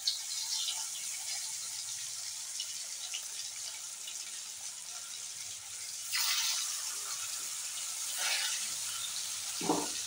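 Sweet pumpkin slices deep-frying in hot oil in a kadai: a steady sizzling hiss that swells about six and eight seconds in as more slices go into the oil. A short thud near the end.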